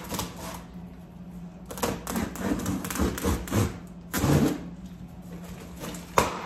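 Quick clicks and scraping of a box cutter on a cardboard box, ending in a louder rustle about four seconds in and a single sharp click near the end.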